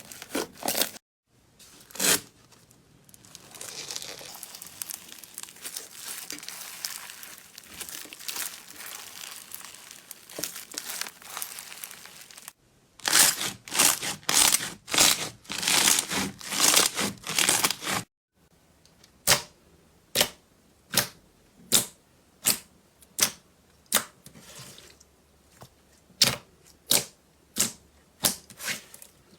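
Crunchy slime being squeezed and worked, in a string of short clips: a few sharp clicks, then several seconds of soft fine crackling, then loud crunching pops about twice a second. After a brief silence come sharp evenly spaced clicks, a little more than one a second.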